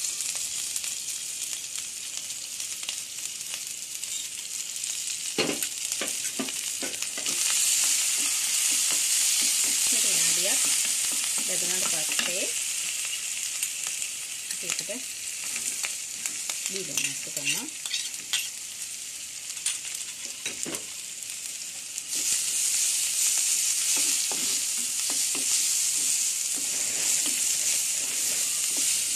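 Green chillies, curry leaves and onions sizzling in hot ghee in a clay pot, stirred with a wooden spoon that scrapes and knocks now and then. The sizzle gets louder about a quarter of the way in, and again near the end once the onions are in.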